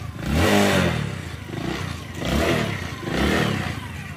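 Motorcycle engine revving in three bursts, each rising and falling in pitch.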